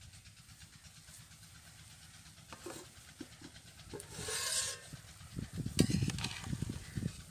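A metal pot lid pulled off a pot of steaming rice about four seconds in, with a brief hiss, then a metal ladle scraping and knocking against the pot as the pulao is stirred.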